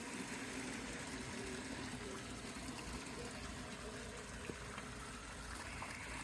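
Pond fountain spraying and splashing steadily into the water. In the first couple of seconds it is joined by the faint drone of the model diesel locomotive's sound decoder.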